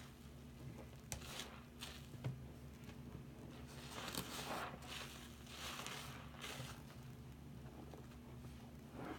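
Soap-soaked scrub sponges squeezed and kneaded by hand in thick foam: wet squishing with a fizzing crackle of popping bubbles, in uneven bursts that are loudest around the middle, over a faint steady low hum.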